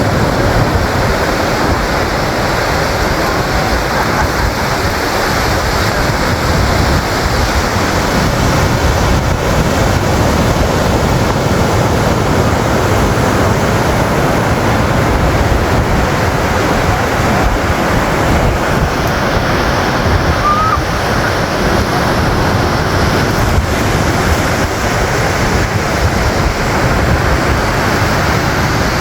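Sea surf washing onto a beach, a steady loud rush, with wind rumbling on the microphone.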